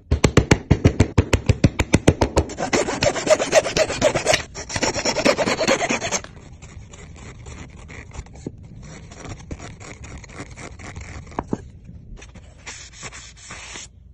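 Wood being rubbed briskly back and forth over a dowelled frame joint, in quick even strokes that are loudest for the first six seconds. After that come quieter scraping strokes of a steel blade paring across the joint.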